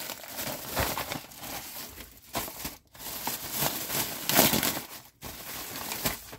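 Clear plastic bag crinkling and tearing as it is pulled open by hand, in irregular rustling bursts, loudest about four seconds in.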